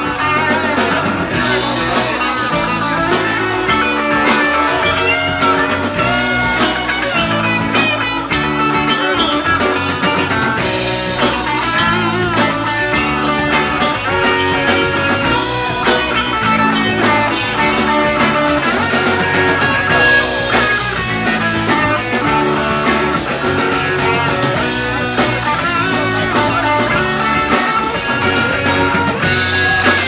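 A live rock band playing with guitars and a drum kit.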